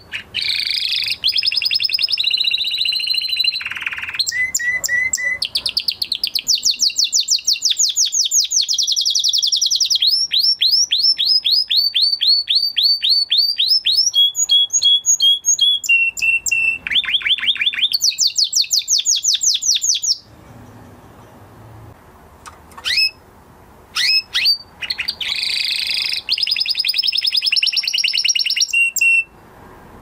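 Male canary singing in long trilled phrases, each a fast run of repeated high notes, some sliding in pitch. The song breaks off about two-thirds of the way through, a few short single calls follow, then one last trilled phrase comes near the end. This is a canary coming back into song after its moult.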